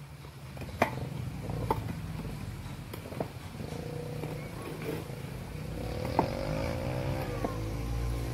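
Sharp metal clicks as the iron frames of the climbing shoes grip and step up an areca palm trunk, over a steady low engine hum. Near the end, a pitched sound wavers up and down.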